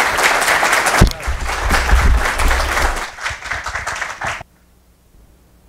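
Press-room applause, a dense run of clapping, with one sharp knock about a second in; the sound cuts off abruptly about four and a half seconds in.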